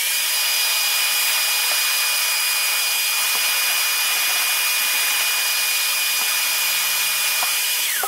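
Vacuum cleaner running steadily, a high motor whine over the rush of air, sucking the built-up dust out of a stripped-down vacuum's cyclone assembly. It switches off near the end and the whine falls as the motor spins down.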